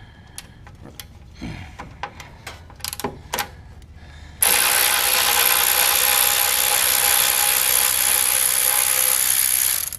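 A handheld power driver runs steadily for about five seconds, starting and stopping abruptly, as it backs out the screw holding the mower deck's belt-guard bracket. Before it, a few light metal clicks and clinks of tool handling.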